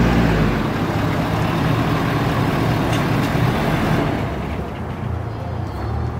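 Ford Super Duty pickup truck idling, its engine running steadily.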